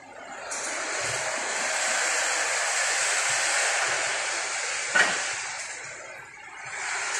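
A loud rushing hiss of moving air that starts abruptly about half a second in, eases off near six seconds and swells again at the end. A single sharp click comes about five seconds in.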